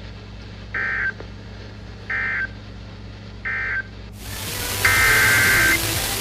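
Emergency Alert System (SAME) digital data bursts. Three short bursts of shrill data tones about 1.4 s apart form the end-of-message code that closes a severe thunderstorm warning. About four seconds in, a hiss comes up and a longer, louder burst follows near the end: the start of the header code for the next alert.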